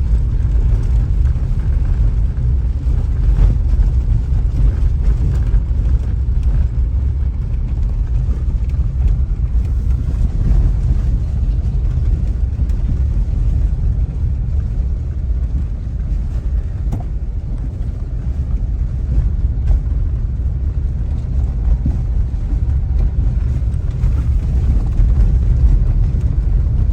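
Steady low rumble of a car driving in traffic, heard from inside the car.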